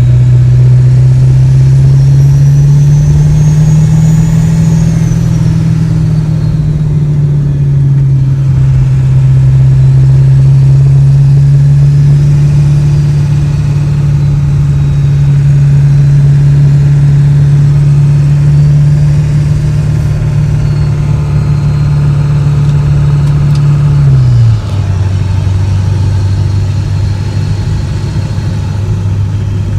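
Ford 7.3 Powerstroke V8 turbodiesel heard from inside the cab while driving: a steady deep exhaust drone that rises slightly a few seconds in, with a faint turbo whistle climbing and falling. About 24 seconds in, the drone drops suddenly in pitch and level.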